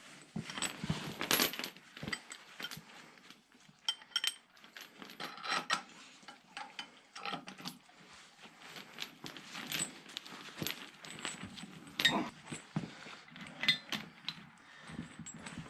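Irregular metallic clinks, clicks and knocks, as of metal hardware being handled and worked; the loudest knocks come about a second in and around twelve seconds in.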